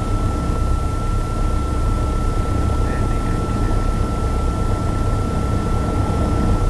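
Piper Archer's engine idling as a steady low rumble in the cockpit audio, with a constant thin high-pitched whine over it.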